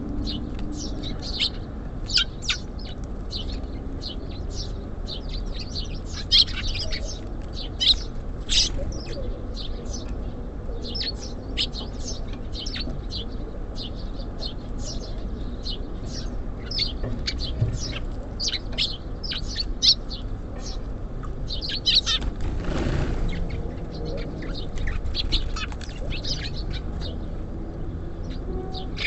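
Small songbirds chirping in rapid short calls over a steady low background rumble, with a brief flutter of wings about three quarters of the way through.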